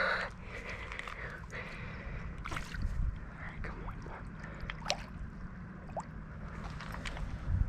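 Pond water splashing and sloshing, with scattered small splashes and drips, over a steady low rumble.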